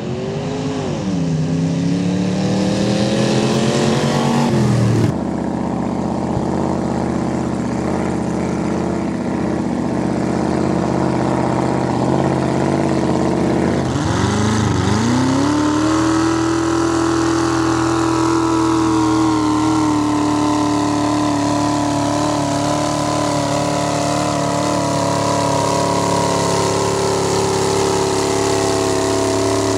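Off-road race engines at full throttle. One accelerates with a shift about a second in, climbing in pitch. Later a mud bog car's engine, running through open vertical stacks, dips and climbs back to high revs and holds there as it churns through thick mud.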